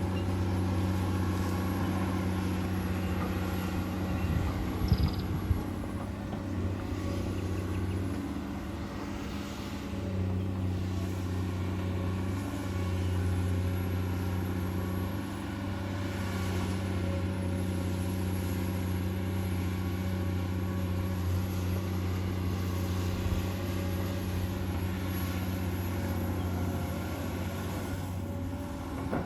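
Komatsu PC200-8 hydraulic excavator's diesel engine running steadily while digging, its level rising and falling slightly with load, with a few sharp knocks about four to five seconds in.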